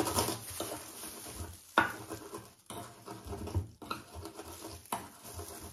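Pestle pounding in a small ceramic bowl: repeated dull thumps with a few sharper knocks, the loudest about two seconds in.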